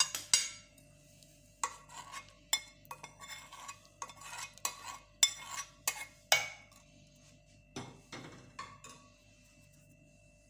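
A metal spoon clinking and scraping against a pot and a glass while hot milk with garlic cloves and garden cress seeds is spooned into the glass. There is a loud clatter right at the start, then irregular sharp clinks about every half second.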